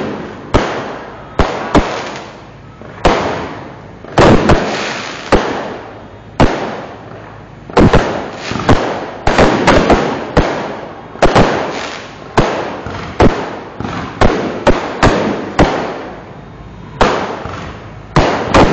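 Fireworks going off one after another: sharp bangs at uneven intervals, some in quick clusters, each trailing off in a fading rumble.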